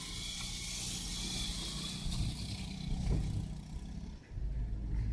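Car engine and tyre rumble heard from inside the cabin while driving, with a high hiss over it for the first couple of seconds. The rumble briefly drops away a little after four seconds in, then comes back.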